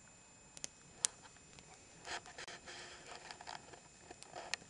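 Campfire of burning wood crackling, with sharp pops and snaps, the loudest about a second in, and a denser run of crackles from about two to three and a half seconds.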